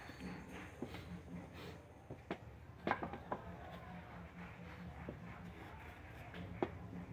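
Pine boards knocking and tapping against each other as they are handled and fitted into a right-angled joint. There are a handful of short, sharp knocks, the loudest about three seconds in.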